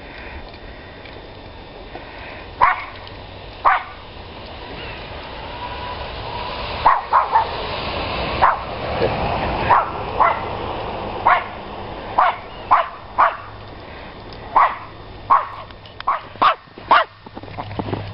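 A dog barking: single sharp barks at irregular intervals, coming faster and closer together near the end.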